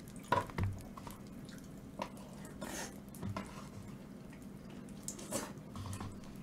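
Faint, scattered clicks and soft knocks, with a short swish about two and a half seconds in, over a steady low hum.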